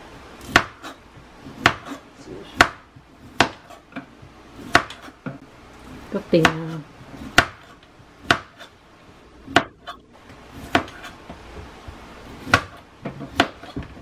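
Chef's knife knocking on a plastic cutting board while the tough outer skin is cut off a fresh bamboo shoot: sharp knocks at uneven spacing, roughly once a second. A short voice sound about six seconds in.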